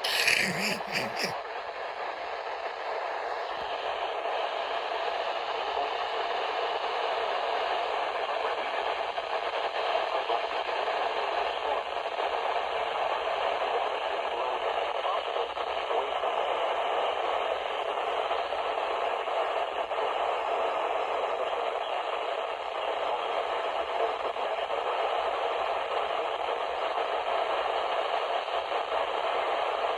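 Weather radio receiver playing a weak, noisy signal: steady static hiss, after a short crackling burst at the start.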